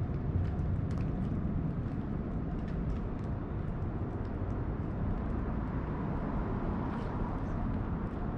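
Steady low outdoor rumble, with faint scattered ticks over it.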